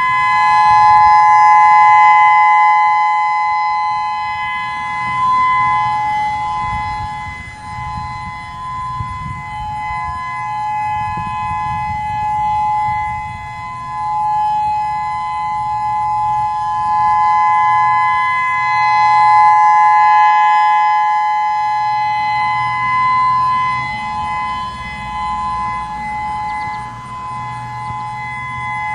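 Federal Signal EOWS-612 electronic outdoor warning siren sounding its Alert signal: a steady two-note tone that holds its pitch throughout. The loudness swells and fades slowly as the rotating six-horn speaker array turns toward and away from the listener.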